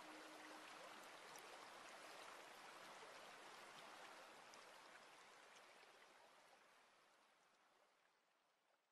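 Running, trickling water from a garden water feature, faint and steady, fading out over the last few seconds.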